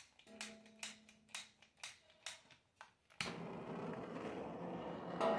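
Repeated clicks of a hand-held gas torch's igniter, about two a second, then just over three seconds in the gas catches and a steady rushing flame starts as the gas forge is lit.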